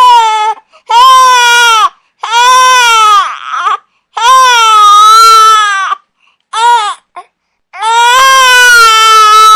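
Infant crying: a run of about six loud, high-pitched wails, each rising then falling in pitch, separated by short pauses for breath. The longest wails last over a second and a half.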